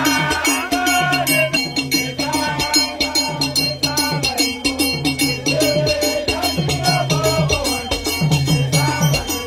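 Upbeat music with a fast, steady shaker-and-drum beat and a melody over a repeating low line.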